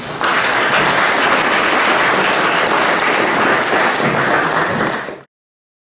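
Audience applauding, cut off abruptly a little after five seconds in.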